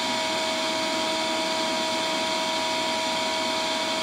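Shop vac running steadily: a constant high motor whine over an even rush of air through the hose.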